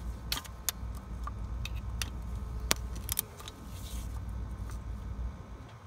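Sharp metallic clicks and clinks of a torque wrench and socket working an injector hold-down bolt, spaced irregularly about half a second to a second apart, over a low rumble.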